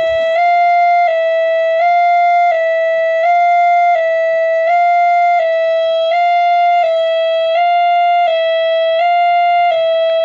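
Railway level-crossing warning alarm sounding while the crossing is closed: an electronic two-tone chime that switches between two close pitches about every 0.7 seconds.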